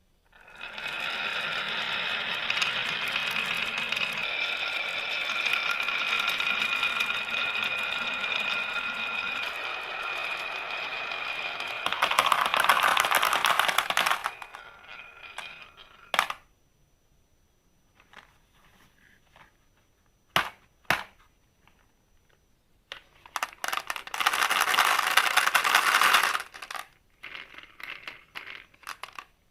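Marbles rolling down a toy marble run track: a steady rolling with a ringing tone for about twelve seconds, then a louder clatter. Scattered sharp clicks follow, with a second clatter near the end.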